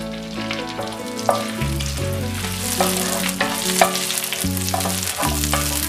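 Whole spices frying in hot butter and oil in a pan: a continuous sizzle, with small clicks and scrapes of stirring.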